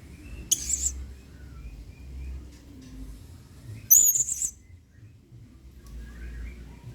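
Blue-crowned hanging parrot (serindit) calling: two sharp, very high-pitched calls, one about half a second in and one about four seconds in, with soft twittering chirps between them.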